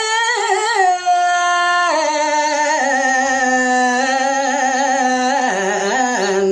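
A man's solo voice singing a Balinese geguritan verse in pupuh Ginanti, drawing out each syllable in long, wavering held notes that step down in pitch twice.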